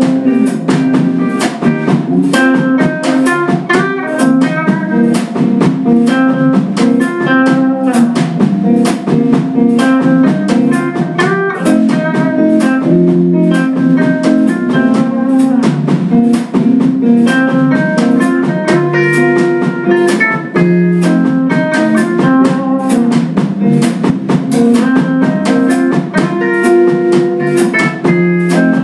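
A small live band playing an instrumental piece: electric guitars over a Mapex drum kit keeping a steady beat.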